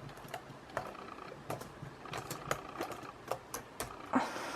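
Faint, irregular plastic clicks and taps from a replacement laptop keyboard being pressed down into the case of a Toshiba Satellite laptop, with about a dozen scattered clicks.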